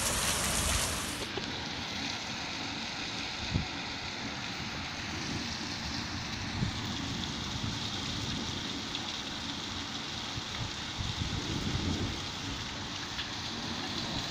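Heavy storm rain pouring onto a street and rooftops, a steady hiss, with a couple of brief knocks.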